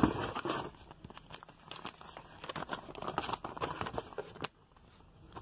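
Glossy paper brochures and a plastic-sleeved flyer rustling and crinkling as they are handled and pulled from a cardboard box, loudest in the first half-second, then scattered crackles that stop about four and a half seconds in.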